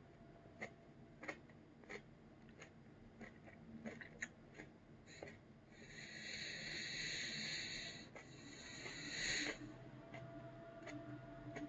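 Faint wet chewing and mouth clicks from a soft, thawed chili pepper being chewed, then two long hissing breaths drawn through the mouth around the middle, the second getting louder.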